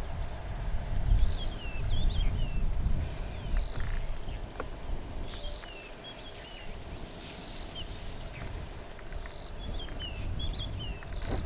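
Several birds calling with short chirps and whistles over a low rumble that is strongest in the first few seconds and eases off about halfway.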